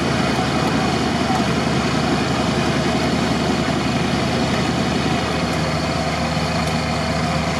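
Mercedes-Benz Unimog's diesel engine running steadily under load as a winch cable drags the stuck truck slowly through deep swamp mud. The engine note shifts slightly about five seconds in.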